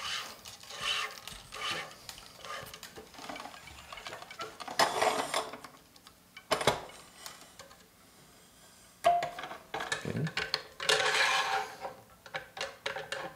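Tennis string being woven and pulled through the main strings of a racquet, in repeated rubbing swishes, with a few sharp clicks and knocks from the NEOS 1000 stringing machine.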